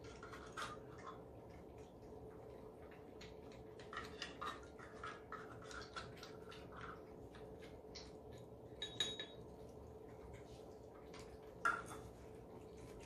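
Several cats eating from ceramic bowls: quiet chewing and licking with scattered clinks of teeth and food against the dishes. A few ringing clinks come about nine seconds in and a sharper knock near the end, over a faint steady hum.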